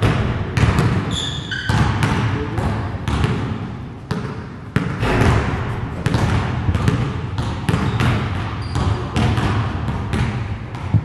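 Several basketballs bouncing on a gym floor, many irregular overlapping thuds. A couple of brief high squeaks come about a second in and again near the end.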